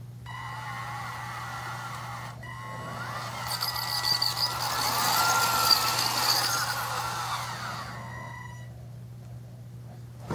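Small DC gear motors of a four-wheel-drive robot platform whining as the robot turns on the spot, the whine swelling and wavering in pitch through the middle and dying away near the end, over a steady low hum.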